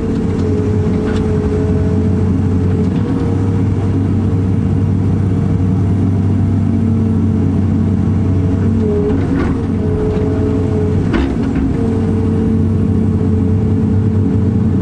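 Cat 330 excavator's diesel engine and hydraulics running under load as the bucket dumps and pushes backfill dirt, heard from inside the cab: a steady low rumble with a whine that dips in pitch now and then, and a few short knocks.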